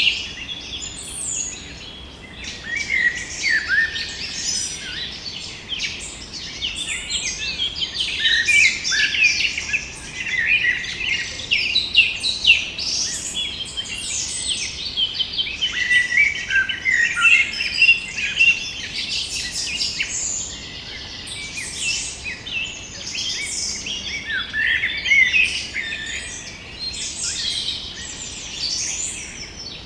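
Forest ambience full of birdsong: many small birds chirping and singing at once in a busy, overlapping chorus of high calls and short trills, over a faint low hiss.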